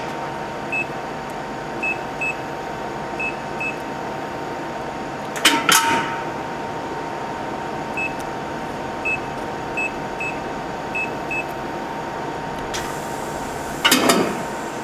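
A 1998 Hitachi Seiki HT23J CNC lathe's solenoid-actuated parts catcher cycling over the machine's steady hum. There is a sharp burst of noise about five and a half seconds in as the catcher swings out, then a hiss and another loud burst near the end as it swings back. Short high electronic beeps sound here and there between.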